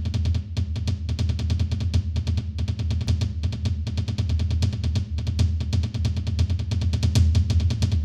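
Drum buildup: a dense run of rapid drum hits over a deep low end, growing a little louder toward the end.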